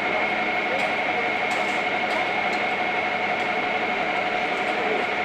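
Fire apparatus engine running steadily, a constant mechanical noise with a high, unchanging whine over a lower hum, and a few faint clicks.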